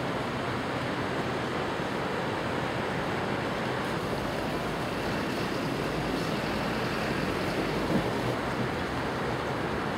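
City ambience: an even, steady rushing noise of distant traffic, with a brief soft knock about eight seconds in.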